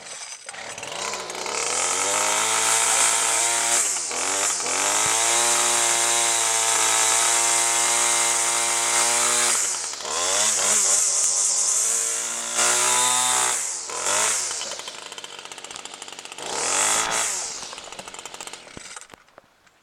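McCulloch MAC 2816 two-stroke string trimmer engine starting on choke and running, revved up and down several times. It drops to a lower speed for a few seconds near the end, revs once more, then cuts out.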